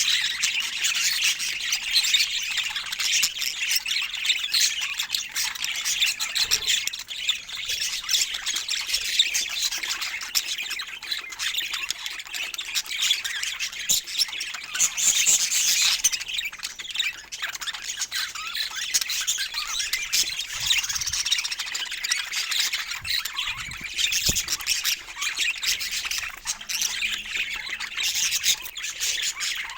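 Budgerigars chattering: a dense, continuous stream of high twittering chirps and squawks.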